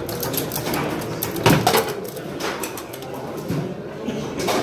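Foosball table in play: quick clacking and rattling of the rods and plastic men as the players work the handles and strike the ball, with a loud sharp crack about a second and a half in and another near the end.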